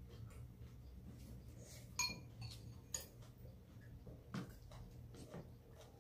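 Metal spoon and chopsticks clinking lightly against stainless steel bowls as food is picked up: several light clinks, the clearest about two seconds in with a short ring.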